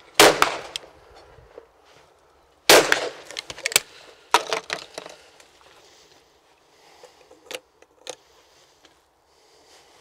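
Two shotgun shots, about two and a half seconds apart, each trailing off in a short echo. The pair is fired at a going-away and a driven clay. Afterwards come a run of clicks and light knocks as the break-action shotgun is opened and handled.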